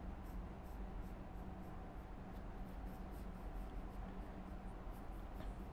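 Graphite pencil sketching on paper: faint, repeated light strokes scratching as an oval is drawn.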